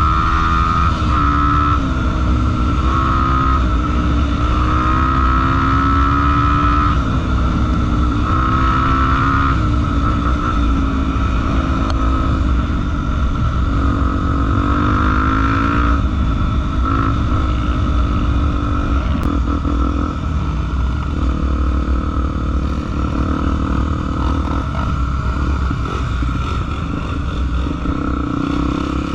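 Honda XR 250 Tornado trail motorcycle's single-cylinder four-stroke engine running under load, its pitch rising and falling every second or two as the rider works the throttle and gears.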